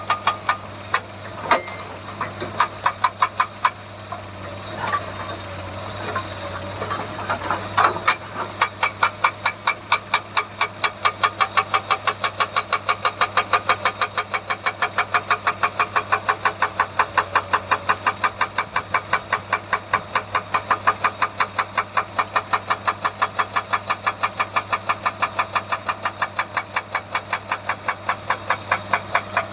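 Hydraulic rock breaker on a Komatsu excavator hammering at about four blows a second over the steady running of the excavator's diesel engine. The blows come in short runs at first, stop for a few seconds, then go on steadily from about eight seconds in.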